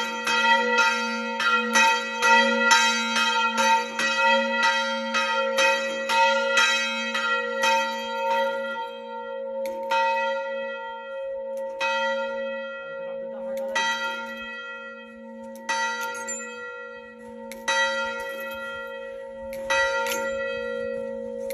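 A single church bell rung by pulling its rope: quick strokes about three a second at first, slowing after about eight seconds to one stroke every two seconds, the bell ringing on between strokes.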